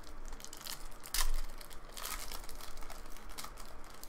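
Foil trading-card pack wrapper torn open and crinkled by hand: irregular sharp crackling, loudest about a second in.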